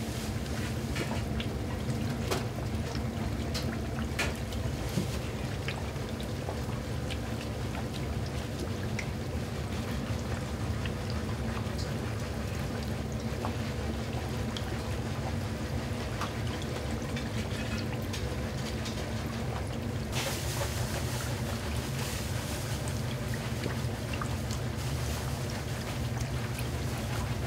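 Hot oil bubbling and crackling steadily in a large commercial deep fryer as a giant breaded pork cutlet fries, over a steady low hum. The sizzle turns brighter and hissier about twenty seconds in.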